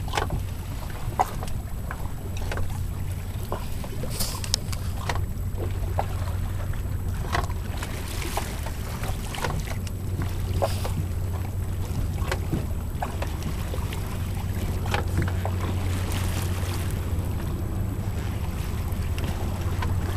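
A boat's engine running with a steady low hum, with wind on the microphone and scattered light clicks and knocks.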